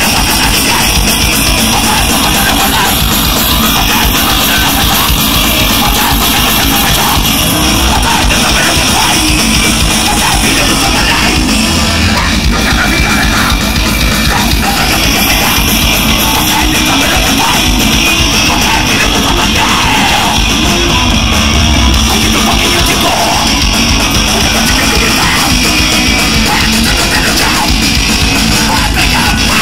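Rock band playing loud live: electric guitars, bass and drum kit.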